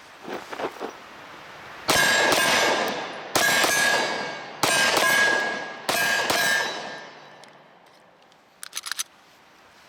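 About six rapid 9mm shots from a SIG Sauer P365 micro-compact pistol, each followed by a long, fading metallic ring at one steady pitch, like a struck steel target ringing from hits.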